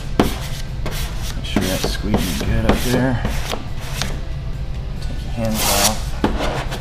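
Hand squeegee rubbing over vinyl wrap film on a car's painted body panel in repeated strokes, pressing the stripe down, over background music.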